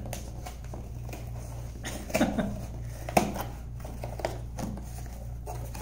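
Cardboard shipping box being worked open by hand: scattered rustles, scrapes and clicks of the cardboard flaps and tape, with the sharpest click about three seconds in, over a steady low room hum.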